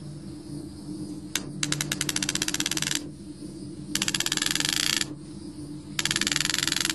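Rope ratchet of a fence tensioning kit clicking rapidly as its rope is pulled through over the ratchet wheel, in three pulls of about one to one and a half seconds each after a single click. The braided electric fence line is being drawn tight.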